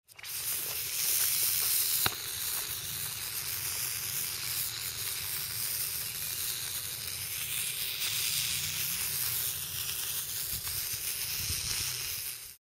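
A lump of sodium metal hissing and fizzing steadily as it reacts on the surface of water, giving off hydrogen. There is one sharp pop about two seconds in.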